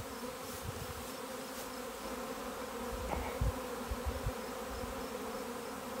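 Honey bee swarm buzzing steadily around and on a nuc box as the bees gather at the entrance to go in after their queen. A few soft low thumps come near the middle.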